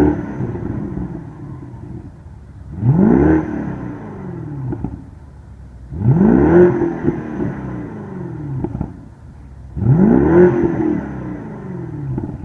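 The 2014 BMW 650i's twin-turbo 4.4-litre V8 exhaust being revved four times, about three seconds apart. Each rev rises sharply in pitch, then falls back to idle.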